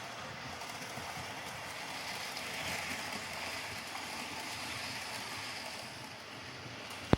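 OO scale model train running on track: a steady whirring rattle of the locomotive's motor and the wheels on the rails that swells louder in the middle and fades again, with a single sharp click near the end.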